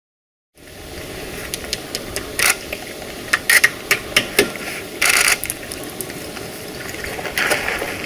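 Irregular sharp taps and clicks of a hand tool fastening something to a birch trunk, a handful of strikes starting after about half a second of silence.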